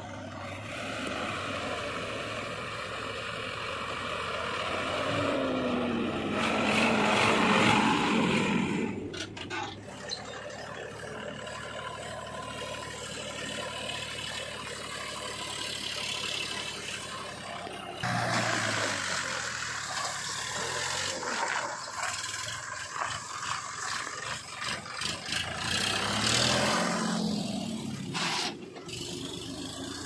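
Diesel engines of a JCB 3DX backhoe loader and a Sonalika tractor running, revving up and down in pitch, loudest about seven seconds in and again near the end. The sound changes abruptly twice, around ten and eighteen seconds in.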